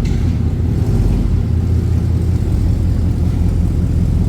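Chevrolet Tahoe Z71's engine running through a freshly repaired custom exhaust, a steady low exhaust note that rises slightly about a second and a half in.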